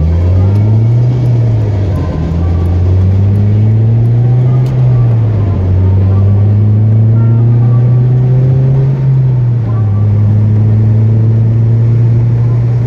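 Car engine heard from inside the cabin, accelerating: its note climbs and drops back about three times as it shifts up, then holds steady at cruising speed.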